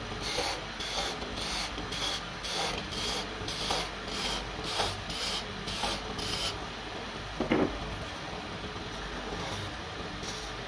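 A hand tool scraping a turned mahogany handle on a wood lathe, in rhythmic rasping strokes about two or three a second, over a low steady hum. The strokes stop about six and a half seconds in, and a single knock follows about a second later.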